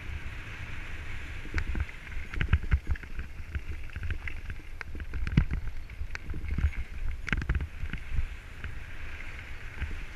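Mountain bike running fast down a rough gravel forest trail, heard from a helmet-mounted camera. A steady rumble of tyres and wind is broken by frequent sharp knocks and rattles as the bike hits bumps and stones.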